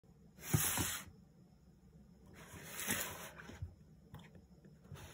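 Cardboard parcel being handled and slid over a wooden tabletop: two scraping swishes with soft knocks, the first about half a second in and the second around three seconds in, then a few faint taps.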